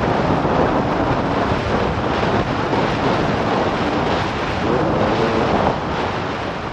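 Heavy wind buffeting on a helmet-mounted microphone, over a 2014 KTM 300 XC-W's single-cylinder two-stroke engine running hard as the dirt bike accelerates at speed.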